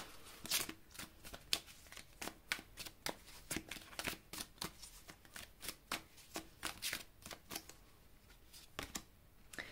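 Tarot cards being shuffled and handled: a quiet run of quick card flicks and slaps, a few each second, thinning out near the end.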